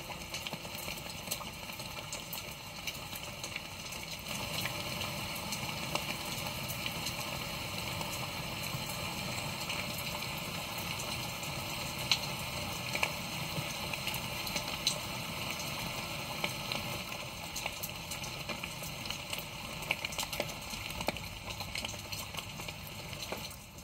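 Steady crackling hiss with many scattered faint clicks, like rain, a fire or frying, fading out at the very end.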